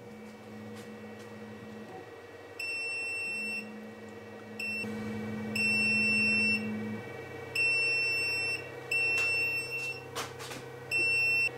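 The TwoTrees Sapphire Plus 3D printer's buzzer sounding its filament runout alarm: a high, pure beep repeated about six times, most beeps about a second long and one short, at uneven spacing. A steady low hum from the printer runs underneath.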